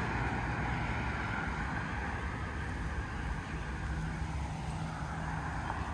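A car passing on the street, its tyre and engine noise slowly fading away, over a steady low hum.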